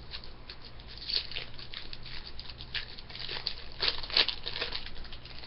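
Upper Deck hockey card pack and cards being handled: a run of quick high crackles and rustles from the wrapper and the cards, loudest about four seconds in.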